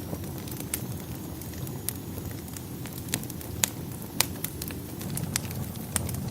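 Wood fire burning in a fireplace: a steady low rumble with sharp crackles and pops at irregular intervals, the loudest a little past the middle.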